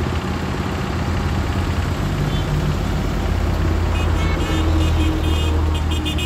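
Heavy diesel truck engine running with a deep, steady rumble that grows louder in the middle. From about four seconds in, a rapid run of high-pitched electronic beeps or tones joins it.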